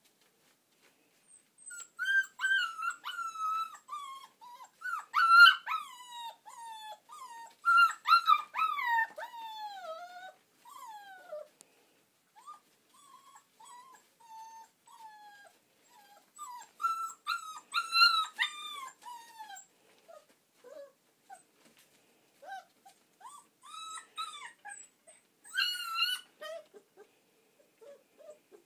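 Puppies whining and whimpering in high-pitched cries that mostly slide downward in pitch. The cries come in three bouts, starting about two seconds in, with scattered quieter whimpers between.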